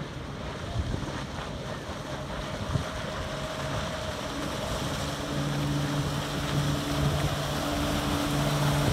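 Outboard motor of a small fishing boat running at speed as the boat approaches, its steady hum coming up about halfway through and growing louder, with wind on the microphone.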